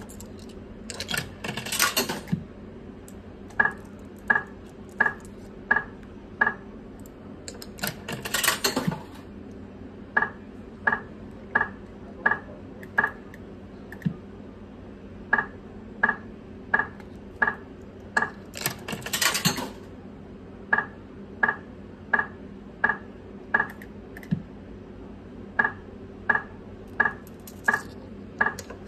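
Electronic sounds of a five-reel video slot machine: a short noisy clattering burst roughly every ten seconds, each followed by a run of about five short, high beeps spaced under a second apart as the reels stop.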